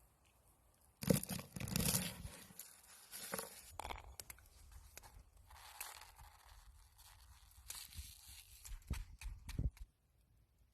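Food being handled and prepared: tearing and crinkling noises, loudest about a second in, then scattered rustles and clicks and a few sharp knocks near the end.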